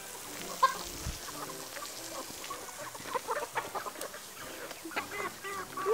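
A flock of young chickens clucking, with many short, scattered calls that grow busier from about halfway through.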